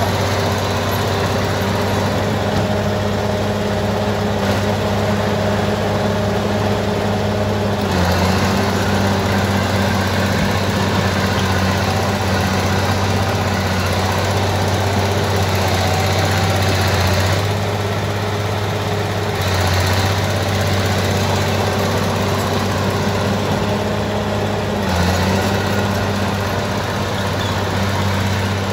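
Crawler bulldozer's diesel engine running steadily, its note dipping and shifting briefly a few times.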